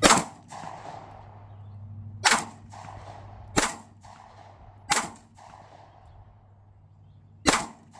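SIG P938 pistol firing five single shots at an unhurried, uneven pace, the last after a longer pause.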